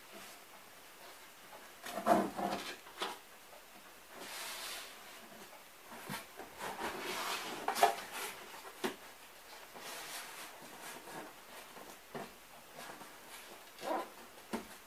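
Hands rubbing and smoothing strips of moistened kraft paper tape onto a cardboard cabinet, with paper and cardboard scraping and a few knocks on the cardboard, the loudest about 2 s and 8 s in.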